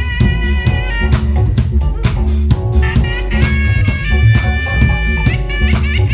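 Live band playing: a busy drum kit with steady fast strikes, bass and electric guitar, with a trumpet playing long held notes from about three seconds in.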